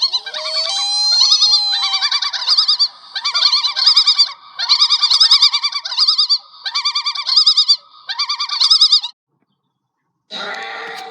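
Creature sound effect: a string of high, rapidly trilling animal-like calls in about six bursts, stopping about nine seconds in. After a second of silence, a different steady sound made of several held tones starts near the end.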